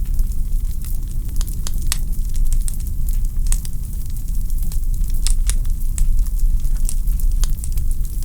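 Wood fire in a fireplace crackling: frequent sharp pops at irregular intervals over a steady low rumble.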